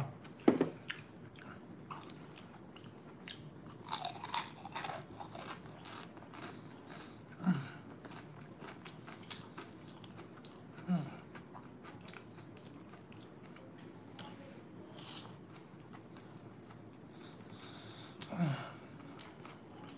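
Close-miked chewing of Chinese takeout, crunchy fried chicken and forkfuls of fried rice, full of wet mouth clicks and crackly crunches, loudest about four seconds in. A few short low 'mm' hums come between the mouthfuls.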